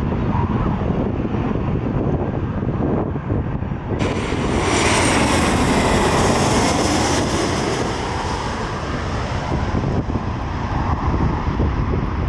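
Jet airliner passing close by. Its engine noise rises abruptly about four seconds in, is loudest a couple of seconds later and eases off toward the end.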